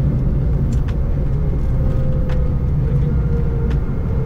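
Steady low rumble inside a Boeing 737-900ER cockpit as the airliner slows on the runway after landing, with a faint steady hum and a few light clicks about a second and a half apart.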